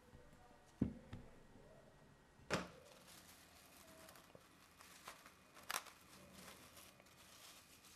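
A thump about a second in as the ball of dough is set down in a glass bowl, then faint crinkling and crackling of plastic cling film as it is pulled out and stretched over the bowl.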